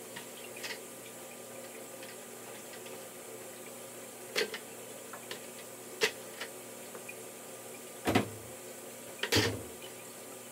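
Clatters and knocks of a plastic aquarium siphon tube, hose and bucket being handled during a water change, over a steady hiss. The two heaviest knocks come near the end.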